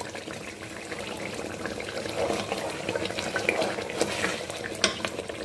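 Tomato-and-pepper stew bubbling at a boil in a pot, a steady crackle of small pops, with one sharper click near the end.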